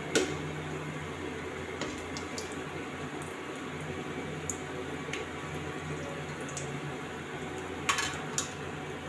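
Gram-flour-coated bread balls deep-frying in mustard oil: a steady sizzle under a low hum, with a few sharp clicks and pops, the loudest just after the start and two more near the end.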